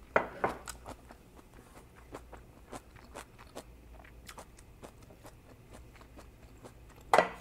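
Close-up wet chewing of a mouthful of oyster pancake, with many small smacking clicks. A louder knock comes near the end.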